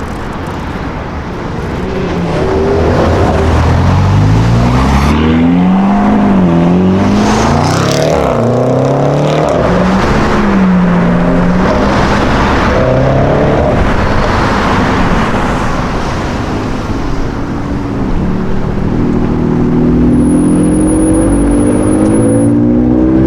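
A high-performance car engine accelerating hard through several gears, its pitch climbing and dropping back at each shift, then another steady climb near the end. A thin high whistle sounds for about two seconds near the end.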